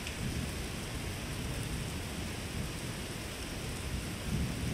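Thunder rumbling low over a steady hiss of rain, the rumble swelling again near the end.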